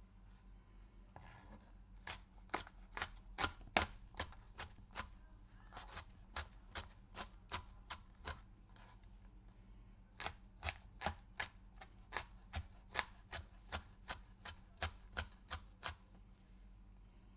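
A pepper being sliced with a knife on a cutting board: two runs of quick, even strokes, about three a second, with a short pause between them.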